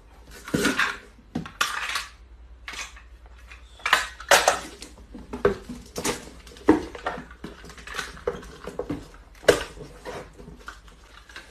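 Small cardboard boxes being handled and sealed with packing tape: an irregular run of short scraping and tearing noises, roughly one or two a second.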